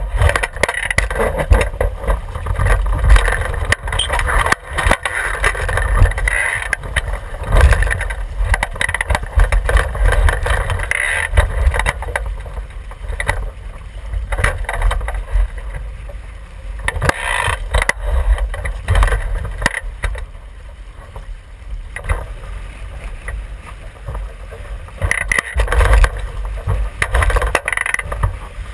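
Wind rumbling on the microphone and water rushing and splashing along the hull of a Javelin sailing dinghy moving fast, surging up and down in gusts of spray.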